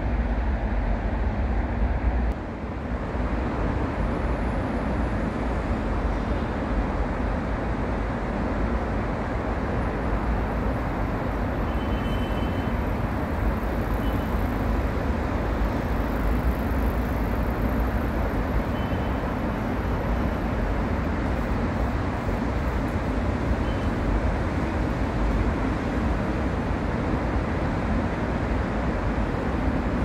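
Steady outdoor city ambience: a constant rumble of distant road traffic, with a few faint, short high chirps now and then.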